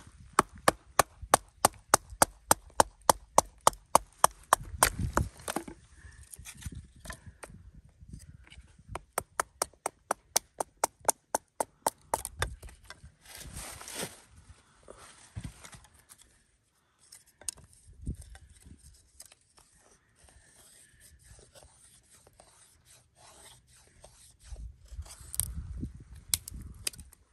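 Puukko knife working wood: quick, sharp knocks at about four a second in two runs of several seconds, followed by scattered knocks and scraping of the blade on wood.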